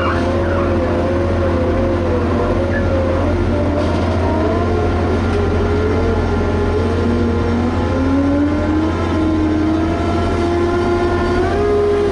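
Liebherr HS8200 dragline's diesel engine and machinery running steadily under a low drone, with whining tones that waver in pitch and climb over a couple of seconds about seven seconds in.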